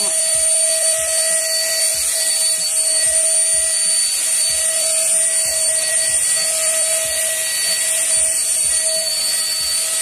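Agratto Duo Praticci stick vacuum cleaner running steadily with a high-pitched motor whine while its floor nozzle is pushed over a shaggy rug.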